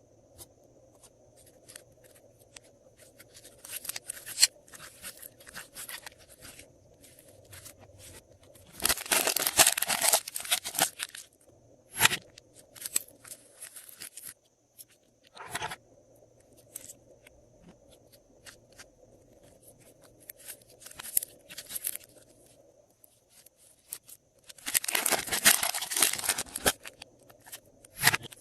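Glossy slime being worked by hand, giving sticky crackling and popping clicks. Two longer, louder bursts of dense crackling come about a third of the way in and near the end.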